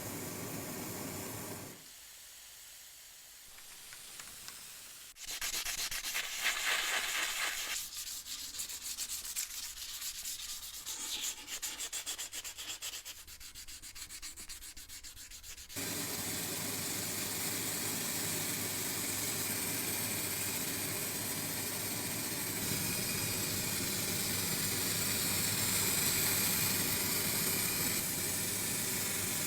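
Surface cleaning of the bread cutter's old metal parts: rapid crackling from about 5 to 16 seconds, then a steady hiss.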